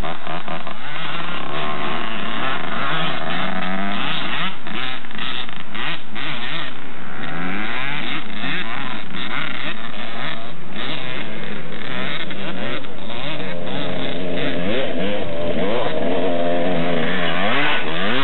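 Several two-stroke dirt bike engines, 1990 Kawasaki KX125 singles, revving up and down over and over. Their pitches rise and fall and overlap.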